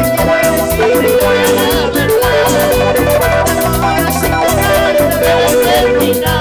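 Live band playing Latin dance music through a loudspeaker system, with a steady percussion beat under a sustained melody.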